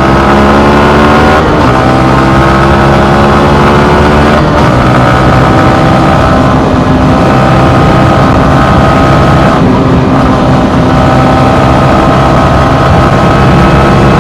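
Yamaha MT15's 155 cc single-cylinder engine running on the move. Its note climbs for about the first second and a half, then holds at a steady pitch, with short breaks about four and ten seconds in, as on gear changes.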